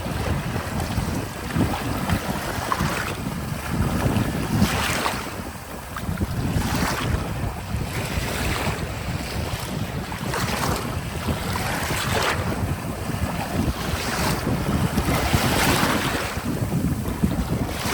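Small sea waves breaking and washing onto the shore, a hissing surge every couple of seconds, over a steady low rumble of wind on the microphone.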